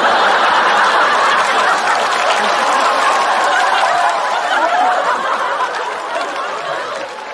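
Studio audience laughing and clapping, the laughter dying away over the last couple of seconds.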